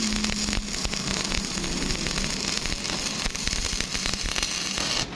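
Electric arc welding: the steady crackle and hiss of a welding arc, which cuts off about five seconds in as the arc is broken.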